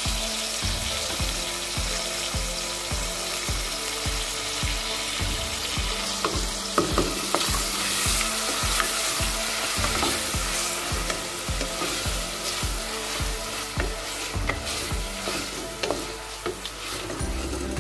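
Ginger and garlic paste sizzling in hot oil with fried onions in a stainless steel pot, stirred with a wooden spatula. The sizzle is a steady hiss with small crackles and the scrape of the spatula against the pot.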